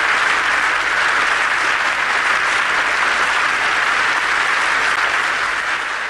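Audience applause, dense and steady, easing off slightly near the end.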